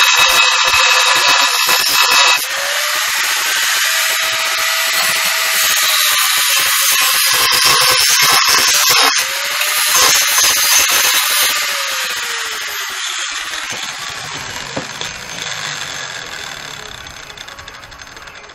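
Electric angle grinder with a cut-off wheel cutting into a flat steel bar: a steady high motor whine under a harsh grinding hiss. About twelve seconds in it is switched off, and the whine falls away as the wheel spins down.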